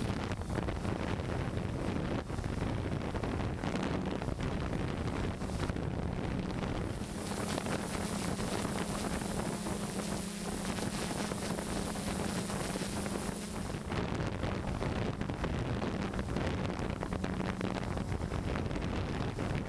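HMF S550 hexacopter's six electric motors and propellers humming steadily, heard from the camera on board, with wind buffeting the microphone. The hum and a high hiss grow stronger for several seconds in the middle.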